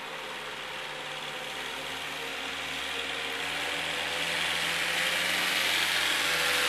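Rough-terrain forklift's engine running steadily as it drives in loaded with pallets of sod, growing steadily louder as it comes closer.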